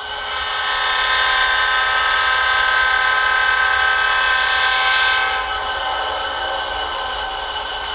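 Train horn sounding one long held chord, growing louder about a second in and easing off a little after about five seconds.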